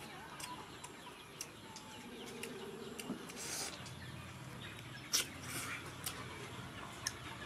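Chewing and crunching on dried fish, with a few sharp clicks, the loudest about five seconds in, against a rural background of birds and insects.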